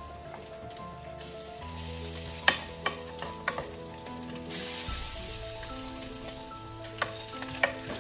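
Turkey bacon sizzling in a nonstick frying pan, cooked dry without oil, with a wooden spatula knocking sharply against the pan about five times as the strips are turned. Soft background music with sustained notes plays underneath.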